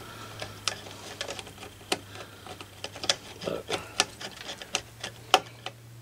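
Small pre-threadlocked screws being turned with a hand screwdriver into a motherboard's metal M.2 heatsink cover: irregular light metallic clicks and ticks, about one or two a second, over a faint steady low hum.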